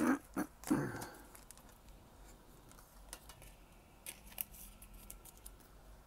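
A few faint, sharp clicks and light rustles of hands handling a Pokémon tin's clear plastic insert and lifting out an oversized card.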